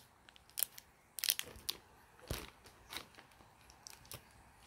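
Scattered light crinkles and rustles of plastic packaging being handled in a cardboard shipping box, with a soft knock a little over two seconds in.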